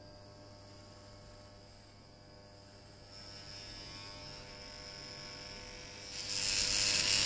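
Daiyamondo FYC RF-666 electric hair clipper running with a steady buzz. About six seconds in it grows louder and rougher as the blade cuts through leg hair.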